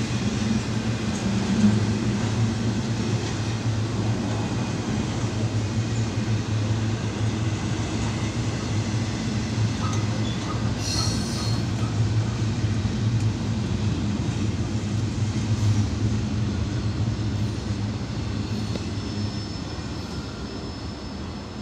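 Freight train cars rolling past with a steady rumble of wheels on rail, a brief high wheel squeal about halfway through and a few shorter ones later. The rumble fades over the last few seconds as the train goes by.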